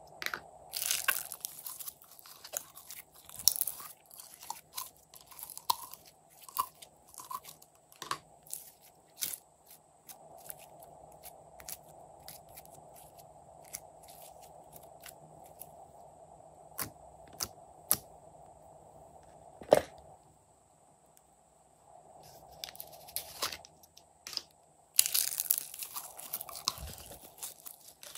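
Hands squishing and stretching glossy slime and squeezing glitter slime out of plastic bottles: irregular sticky clicks and pops, with denser crackling stretches near the start and near the end, over a faint steady hum.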